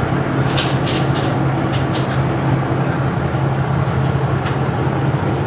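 KiHa 40 diesel railcar running, a steady engine drone with a strong low hum, over which several short sharp clicks come in the first two seconds and one more near the end.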